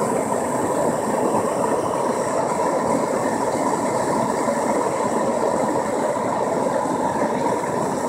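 Gas blowtorch burning at full, a steady rushing flame noise as it fires into the opening of a small brick furnace to heat aluminium towards melting.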